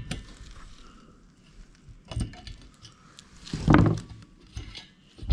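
Scattered light metallic clicks and clinks of mini-bike clutch parts being handled and fitted on the shaft, with a louder knock about three and a half seconds in.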